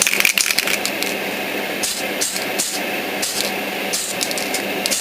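Aerosol can of white primer: the mixing ball rattles briefly as the can is shaken, then about six short hissing spray bursts follow, each a fraction of a second long.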